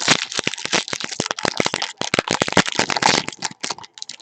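Crinkling and crackling of a foil trading-card pack wrapper being handled and torn open, a dense run of sharp irregular crackles.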